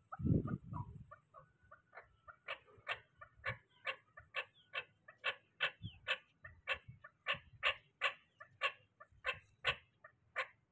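Chukar partridge calling, a short 'chuk' note repeated about two to three times a second, growing louder over the first few seconds and then holding on steadily. A brief low rumble sounds in the first second.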